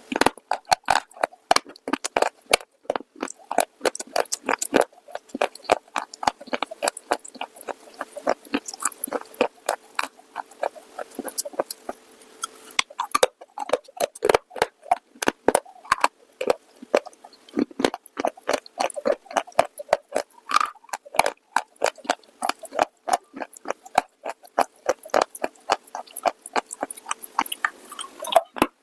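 Close-miked crunching and chewing of a brittle, dry item: rapid crisp cracks and crackles, several a second, with short pauses around 13 and 18 seconds in, and a faint steady hum underneath.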